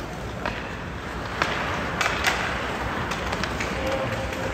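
Ice hockey play: skate blades scraping on the ice with several sharp clacks of sticks and puck, the loudest a little after halfway.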